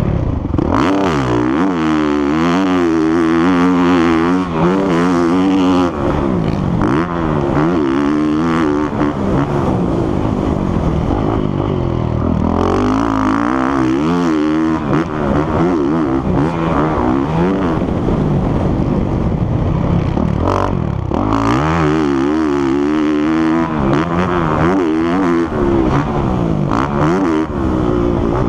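Motocross dirt bike engine heard from on board while being ridden hard, revving up and dropping back again and again as the throttle is opened and closed and the gears change.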